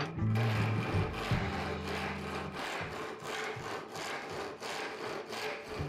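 Hand panel saw, freshly refiled to rip-cut teeth and reset, ripping along a board in a steady run of back-and-forth rasping strokes.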